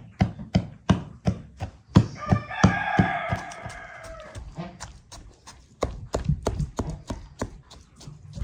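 A large kitchen knife stabbed again and again into a raw beef leg, each thrust knocking on the wooden cutting board, about three a second with a short pause past the middle. A rooster crows once, about two seconds in.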